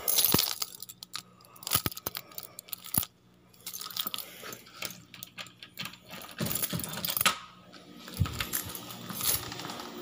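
A bunch of keys jangling and clinking, with irregular sharp clicks and knocks from handling as a door is reached.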